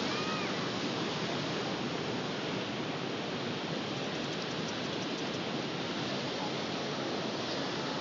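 Ocean surf on a beach: a steady rushing wash of waves with no single breaker standing out.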